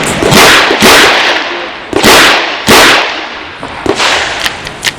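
Handgun shots fired in a string during a timed stage: four loud shots in pairs about half a second apart, then a fainter one near the end, each with a long echoing tail.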